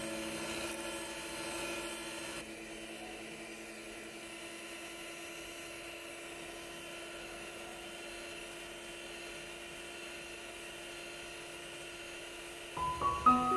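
Electric hand mixer running steadily with a constant motor whine, its twin beaters whipping egg-foam sponge cake batter. Piano music comes in near the end.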